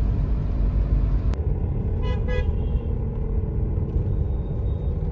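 Car road noise heard from inside the moving car's cabin, a steady low rumble, with two short car-horn toots about two seconds in.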